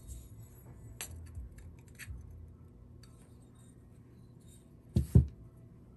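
Small fused-glass pieces being handled on a work table: a few faint clicks, then two sharp knocks close together about five seconds in.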